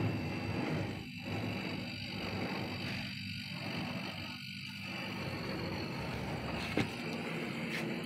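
Steady rough hiss with a low rumble as a window AC coil, submerged in a water tub, is pressurized through its gauge hoses for a leak test. The sound dips briefly every second or so.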